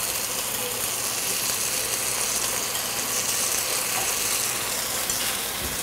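Chopped onions frying in hot vegetable oil in a pan, sizzling steadily.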